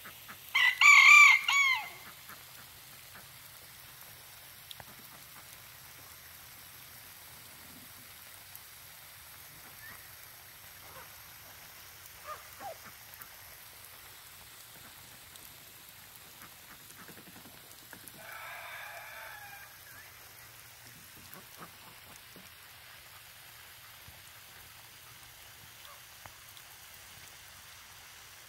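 A rooster crows once, loud and lasting about a second and a half, right at the start; a second, much fainter crow comes about 18 seconds in.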